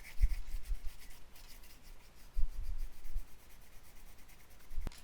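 An oil pastel held on its side being rubbed back and forth across drawing paper in quick repeated strokes to colour a large area, with a few dull knocks.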